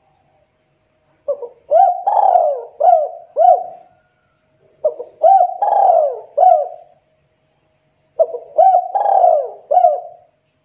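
Spotted dove (tekukur) cooing: three repeated song phrases, each a run of short rising-and-falling coos.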